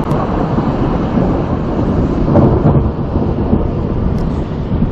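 Thunder rumbling long and low after a nearby strike, slowly fading.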